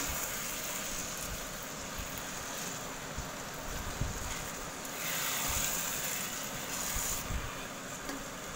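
Silicone spatula stirring sticky sweet zarda pulao rice in a pan: soft wet scraping and mixing over a steady hiss, with a few light knocks of the spatula.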